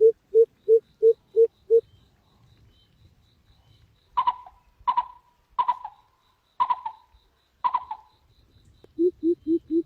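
Bird calls: a run of evenly repeated low notes, about three a second, breaks off; then five sharp calls come about a second apart, and near the end the repeated notes start again, rising in pitch.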